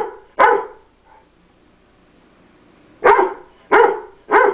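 Dog barking in single sharp barks: two at the start, a pause of about two seconds, then three more in quick succession. These are angry protest barks at the owner, who has been talking back to him.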